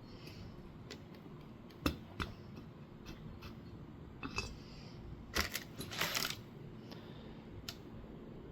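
Light metallic clicks and scrapes of a piston ring and feeler gauge blades being handled in a motorcycle cylinder bore for a ring end-gap check. There is a sharp click about two seconds in and a cluster of scraping and clicking around five to six seconds in.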